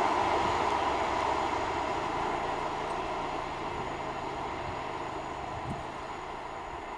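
Freight train of open coal wagons rolling away on the rails, a steady wheel-on-rail noise that slowly fades as the train recedes.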